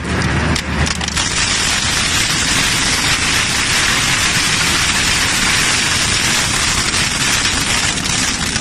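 Twin-shaft shredder's interlocking hooked cutters tearing through scrap metal rods and pipes: a dense, steady crunching and crackling.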